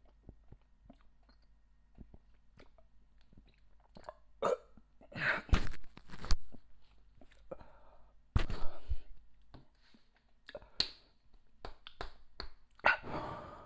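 A man chewing with small mouth clicks, then spluttering in several short, sudden outbursts from the throat as a Carolina-pepper-flavoured jelly bean burns his mouth.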